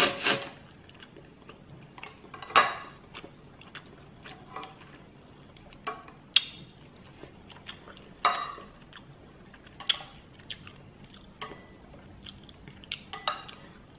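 Someone eating instant noodles with chopsticks: scattered chewing and lip-smacking sounds with light clicks of utensils against a bowl, the loudest a few seconds apart.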